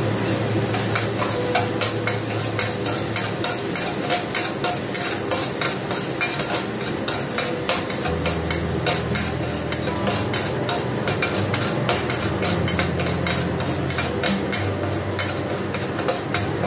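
Metal ladle scraping and clinking against a metal wok in quick, repeated strokes, stirring minced garlic that sizzles in hot oil as it is sautéed until fragrant.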